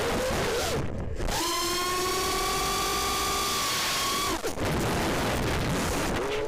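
FPV quadcopter's brushless motors whining over a rush of air. After a brief throttle cut about a second in, the whine holds at one high pitch for about three seconds, then drops away.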